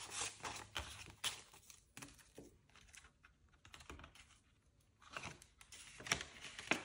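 Paper banknotes and the plastic envelope pages of a cash binder being handled: a run of light rustles and clicks, sparser in the middle and busier again near the end.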